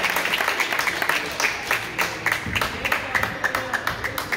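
A small crowd clapping, dense at first and thinning to scattered claps toward the end, with voices mixed in.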